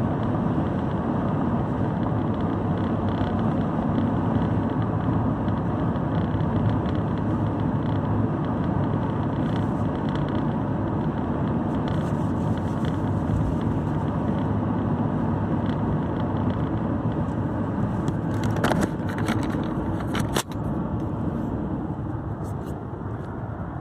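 Steady road and engine noise of a car being driven, with a few sharp clicks about 19 to 20 seconds in.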